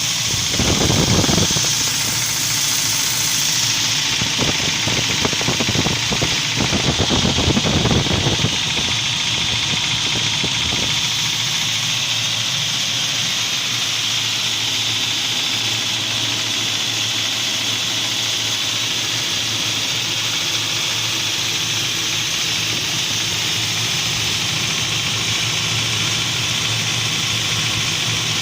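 UAZ Patriot engine running at idle, with two louder surges in the first nine seconds and then a steady, even sound. The owner is recording it for a knock in the engine.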